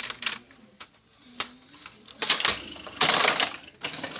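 Plastic Nerf toy blasters being handled: a few separate clicks, a sharp one about a second and a half in, then bursts of plastic clattering and rattling in the second half.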